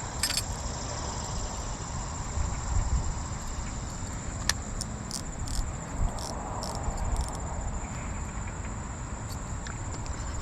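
Insects, crickets or similar, chirring in a steady high-pitched drone over a low rumble, with a few brief clicks about halfway through.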